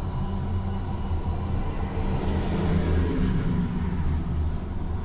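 Road vehicle engine and tyre noise, a steady low rumble.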